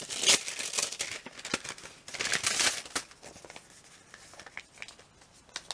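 Paper rustling and crinkling as an insurance document is pulled out of a paper envelope, with small clicks and taps of handling. The loudest rustles come just after the start and again around two to three seconds in, then it goes quieter.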